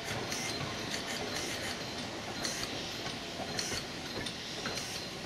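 GWR 4500 class 2-6-2 small prairie tank steam locomotive No. 4566 moving slowly, with a soft chuff or clank about once a second over a steady background of hiss and rail noise.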